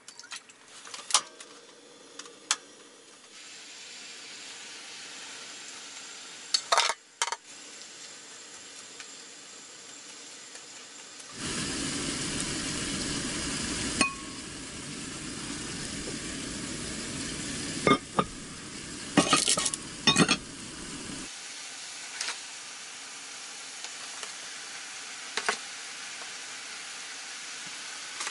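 Chopped onions frying in hot oil in a cast-iron skillet on a portable gas stove. A loud sizzle starts suddenly about eleven seconds in and lasts about ten seconds, with a metal utensil clinking against the pan as they are stirred. A few sharp clicks come first, and a quieter steady sizzle follows.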